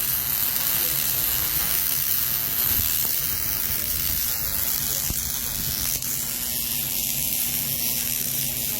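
Electric arc welding on steel: a steady sizzling hiss, with a low steady hum underneath.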